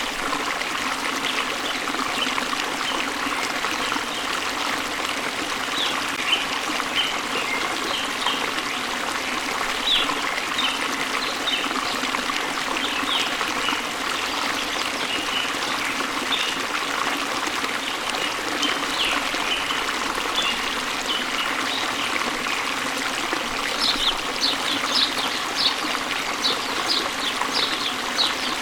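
A waterfall and stream flowing steadily, with birds chirping in short high notes over it. The chirps come thicker and quicker near the end.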